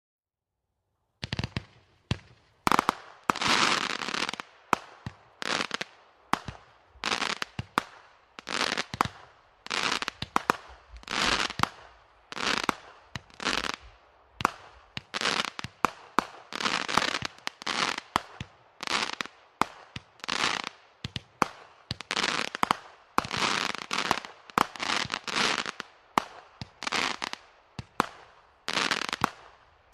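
Consumer firework cake firing its shots in steady succession, about one a second, starting about a second in. Each shot is a sharp pop followed by a crackling hiss as the gold-tailed shell breaks into a chrysanthemum.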